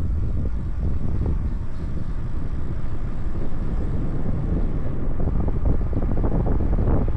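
Wind rushing over the microphone of a moving e-bike, a steady low rumble that keeps fluctuating.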